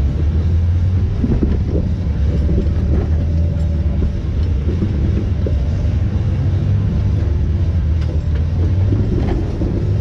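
Steady low rumble of a Jeep engine running at crawling speed.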